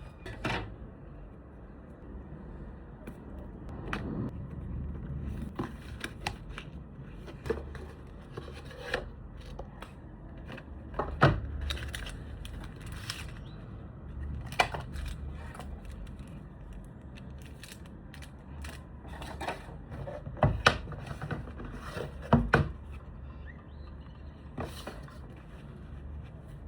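Packaging of a DJI Osmo Mobile 8 gimbal being handled and unboxed: irregular taps, clicks and scrapes of box and parts, with sharper knocks about eleven seconds in and twice more past twenty seconds, over a low steady rumble.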